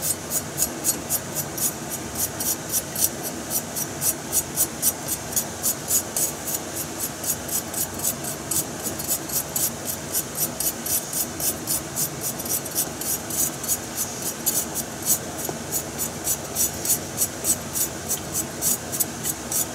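A kitchen knife shaving thin slivers off a burdock root (sasagaki), a quick, even series of rasping scrapes at about four strokes a second.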